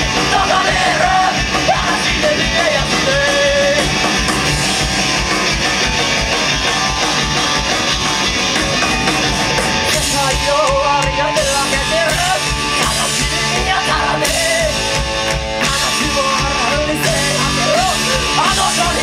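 A live rock band playing loud, fast rock on electric guitars, bass guitar and drums, with a male singer singing over it.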